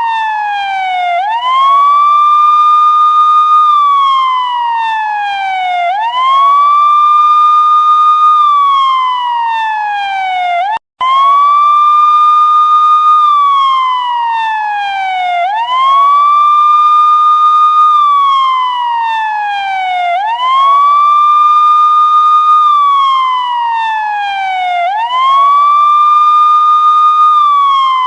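Police siren in a slow wail: each cycle the pitch sweeps quickly up, holds high for about two seconds, then slides slowly down, repeating about every five seconds. The sound cuts out for a split second about eleven seconds in.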